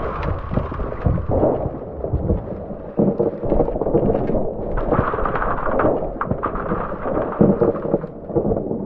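Iceberg breaking apart: a continuous low rumble with many sharp cracks and crashes as ice blocks split off and fall.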